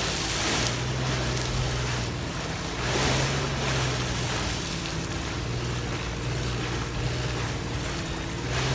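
VW Passat 4motion's engine running in mud, a steady low hum under a rushing noise that swells and fades several times in the first few seconds.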